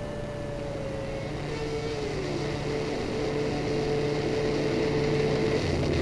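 Opening of a music track: sustained, slowly shifting notes that grow steadily louder.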